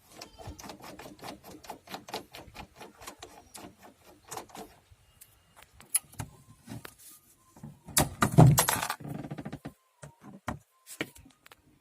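Rapid clicking and rattling of hand tools and plastic trim as a Maruti Suzuki Alto's inner door pad is worked loose, with a louder clatter about eight seconds in.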